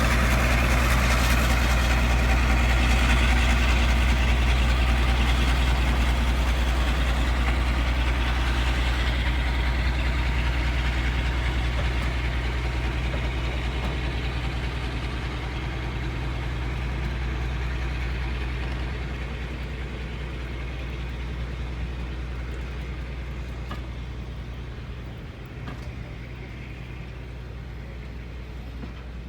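Class 52 'Western' diesel-hydraulic locomotive's engines running with a steady low hum, slowly fading away over the stretch.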